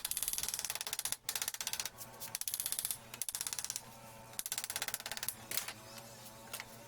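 Rapid, light hammer taps in short runs of about a second each, the sound of tapping out a gasket against an engine part to cut it.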